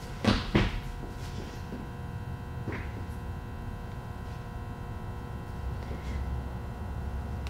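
Steady electrical hum in a quiet room, with a couple of short sharp sounds about half a second in.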